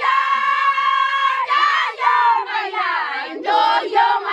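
Group of girls singing or chanting in high voices, opening on a long held note of about a second and a half, then shorter rising and falling phrases.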